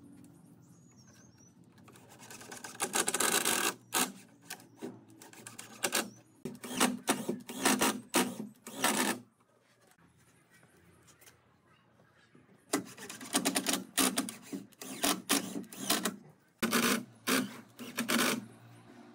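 Cordless drill driving screws into pine pallet boards, in repeated bursts of a second or two, with a lull in the middle.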